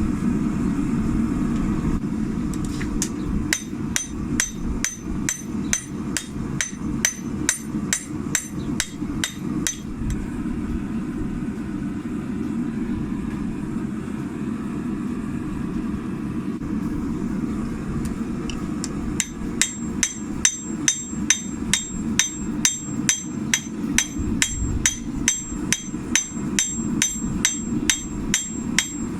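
Blacksmith's hand hammer striking hot carbon steel from an old pickaxe on an anvil to draw out a blade, about three ringing blows a second. The blows pause for about nine seconds in the middle and then resume, over a steady low roar.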